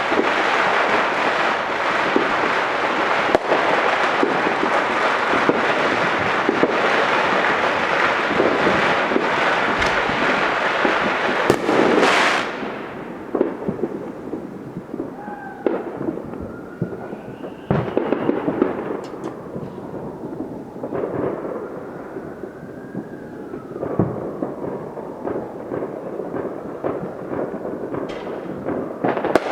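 Fireworks and firecrackers going off: about the first twelve seconds are a dense, continuous crackle of many firecrackers that stops suddenly. After that come scattered separate pops and bangs, with faint whistling tones sliding down and up.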